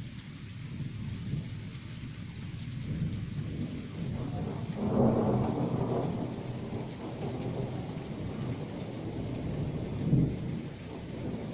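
Distant thunder rolling from a storm still about ten kilometres off, over light rain. The thunder rumbles low throughout, swells loudest about five seconds in, and peaks briefly again near the end.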